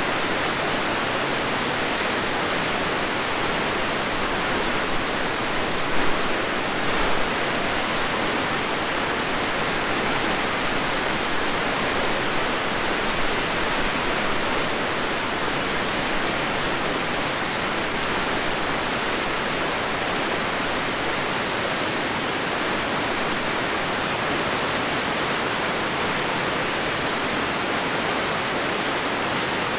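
Rushing river water pouring over falls, a steady, unbroken rush of white-water noise.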